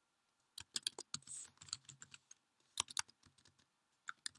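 Faint computer keyboard keystrokes and clicks, scattered in a few short irregular clusters.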